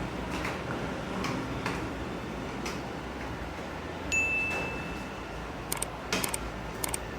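A single short high beep about four seconds in, followed by a few sharp clicks, over a steady low hum.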